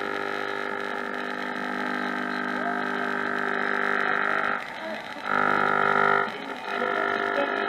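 Shortwave crystal set receiving a crowded band as its filter capacitor is tuned: a steady buzzing mix of whistle tones and hiss from interfering stations. About four and a half seconds in the signal briefly drops out, then a louder steady whistle holds for about a second before another short dropout.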